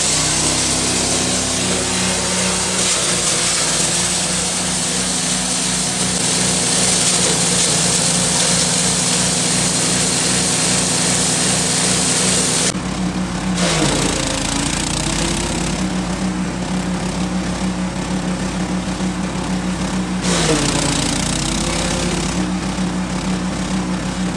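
Small petrol engine running a multifunction chopper. The blades grind corn cobs with a loud, steady rasping hiss, then chop green grass stalks. The engine note dips briefly and recovers a few times as it takes the load.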